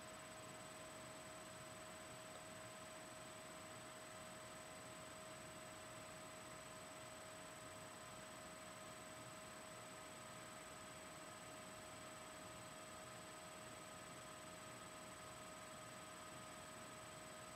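Near silence: the recording's own steady hiss with a faint, unchanging electronic hum of several thin high tones.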